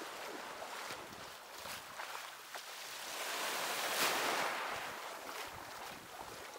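Sea waves washing onto a beach, one surge building and breaking about four seconds in.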